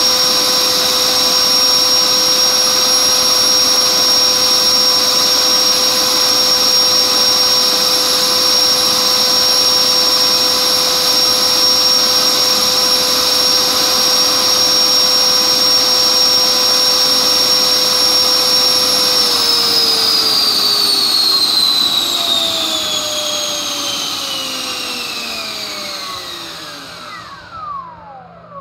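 Dynamax electric ducted fan driven by a TP-5870 530kv brushless motor, running at about 30,000 rpm and 8 kW: a steady, loud, high whine over a rush of air. About two-thirds of the way through, the motor is shut down and the whine falls steadily in pitch and fades as the fan spins down, almost stopped at the end.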